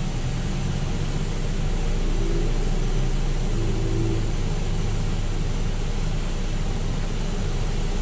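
Steady running noise of a Belanger FreeStyler automatic car wash working on a car in the bay, mixed with a low car-engine hum, heard from inside a waiting car.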